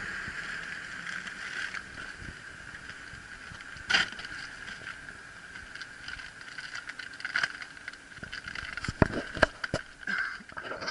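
Gear being loaded into a car's boot: a sharp knock about four seconds in, then a cluster of clunks and clicks from a plastic cooler box and containers being handled, loudest near the end, over a steady faint hiss.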